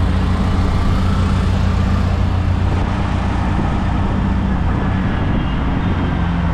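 Steady low rumble of a car's engine and road noise, heard from inside a moving car in city traffic.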